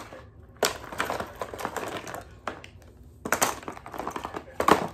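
Rummaging through makeup products: small plastic containers and compacts clicking and clattering against each other in several quick bursts, the loudest near the end.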